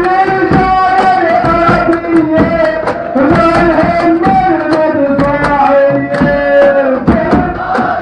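A protest chant sung in long, held lines over a steady hand-drum beat.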